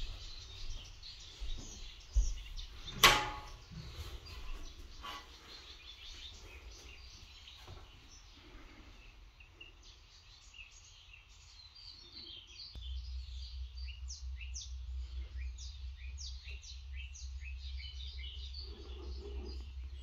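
Small birds chirping and singing, their notes growing busier in the second half. A single sharp knock comes about three seconds in, and a steady low rumble sets in past the middle.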